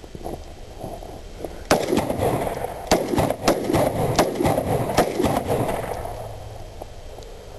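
Gunfire: a volley of about ten sharp, irregularly spaced shots starting a couple of seconds in, over a rushing noise that dies away.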